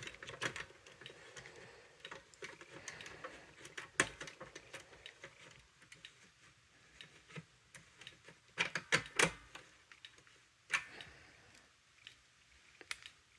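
Scattered, irregular clicks and taps, a few louder ones bunched together about nine seconds in, with no alarm sounding.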